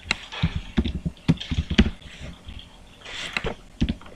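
Typing on a computer keyboard: a quick, irregular run of keystroke clicks, several a second.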